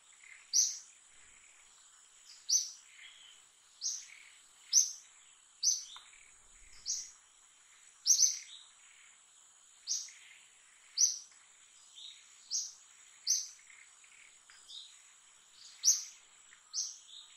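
A bird chirping over and over, short sharp high notes that each drop quickly in pitch, about one a second, over a steady thin high insect drone.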